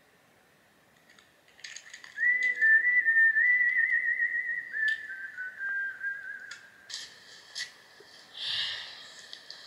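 A high whistling tone starting about two seconds in, in two long wavering phrases, the second a little lower than the first, with a few light clicks around it.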